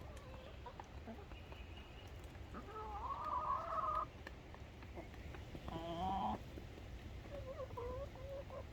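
Chickens clucking and calling: a drawn-out call about three seconds in, a shorter one about six seconds in, and softer clucks near the end.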